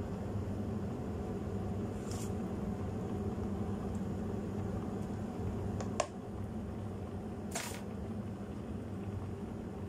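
Steady low mechanical hum, with a brief rustle about two seconds in as shredded cabbage is dropped onto the creamy soup in the pot. A sharp click comes about six seconds in, and another short rustle follows a moment later.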